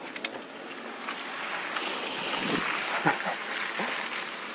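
Wind rushing over an action camera's microphone, a steady hiss that swells about halfway through.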